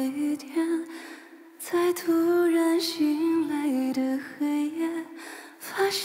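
A woman singing a slow melody in long held notes that step up and down, with little accompaniment under the voice. The line drops away briefly about a second in, and there are short breaths between phrases.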